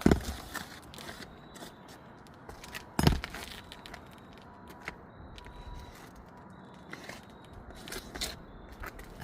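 Footsteps and scuffs on an asphalt shingle roof, with two heavier thumps right at the start and about three seconds in, and lighter scattered clicks between.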